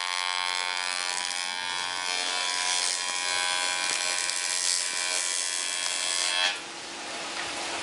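A small electric motor buzzing steadily, then cutting off suddenly about six and a half seconds in, leaving a hiss.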